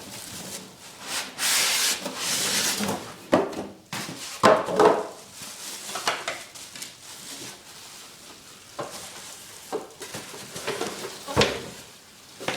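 Grill being lifted out of its cardboard box and packaging by hand: irregular rustling and scraping, loudest in the first few seconds, with a few knocks midway and a sharp click near the end.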